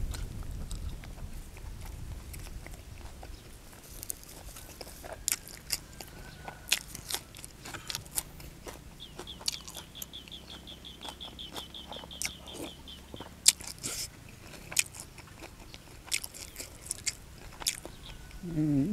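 Close-miked chewing and crunching of a mouthful of sticky rice and fish larb, with many short wet mouth clicks.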